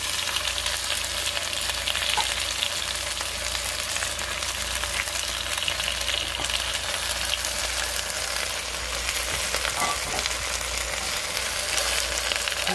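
Dried guajillo and pasilla chiles, tomato and green chile frying in a stainless steel pot: a steady sizzle and crackle.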